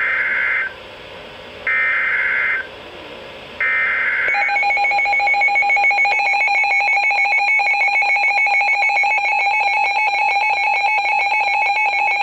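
Emergency Alert System SAME header: three one-second bursts of screeching digital data tones, about two seconds apart. These are followed by the EAS attention signal, a harsh steady two-tone alarm that starts about four seconds in and holds without a break.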